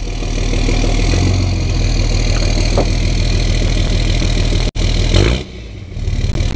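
Cummins 24-valve turbo diesel engine in a pickup idling steadily, heard from near the exhaust; the sound cuts out for an instant about two-thirds in.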